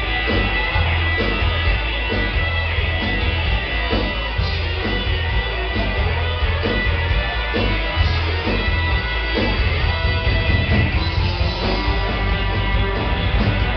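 Live rockabilly band playing loud: hollow-body electric guitar, slapped upright bass and drums, with a heavy, boomy low end as heard from the audience.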